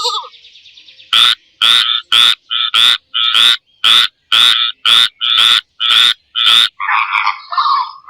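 A frog croaking over and over, about a dozen short, loud croaks at roughly two a second. Near the end they give way to a different, more irregular animal call.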